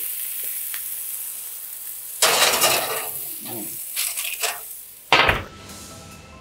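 Cast iron pan of king oyster mushrooms sizzling in butter and oil, with a metal clatter about two seconds in as the pan goes into the oven. A deep knock about five seconds in as the oven door shuts, after which the sizzle fades away.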